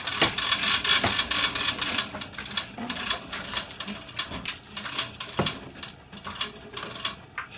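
Spring-driven hose reel's ratchet and pawl clicking as the reel winds the hose back in, quick clicks at first, thinning to scattered clicks in the second half. The spring is not preloaded enough to pull the hose fully back.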